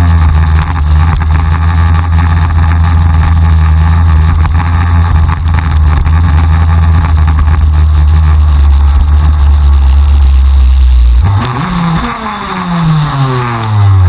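A KZ2 shifter kart's 125cc TM two-stroke engine running steadily at low revs while the kart rolls slowly. About eleven seconds in the steady note breaks off, and a short rise gives way to a falling pitch as the kart slows to a stop behind another kart.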